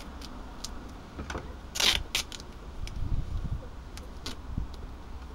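A strip of duct tape being cut and handled: small clicks and rustles, with one short crackling rip about two seconds in, the loudest sound.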